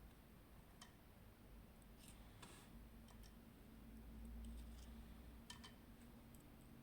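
Faint, sparse metallic clicks and taps of small parts of an Abloy Sentry disc-detainer padlock being handled and taken apart, over a low steady hum.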